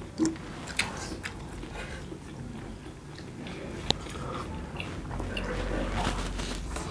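Chewing and biting chicken momo dumplings without hands: wet mouth smacks and small clicks, with one sharp click about four seconds in.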